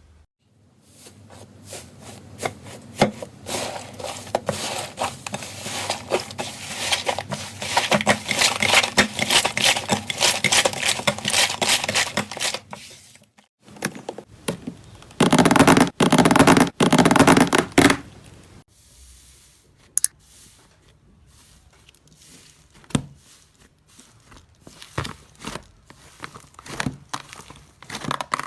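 Slime being worked by hand, making dense crackling, tearing sounds. These cut off suddenly about 13 seconds in, followed by a louder, lower burst lasting a few seconds, then scattered clicks and pops.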